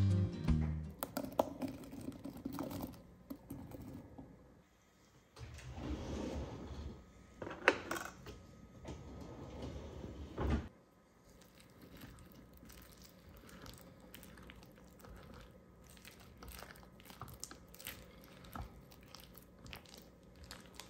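Kitchen utensils working cake batter in a mixing bowl: scattered light clicks and knocks, with a louder stretch of handling noise that cuts off suddenly about halfway through.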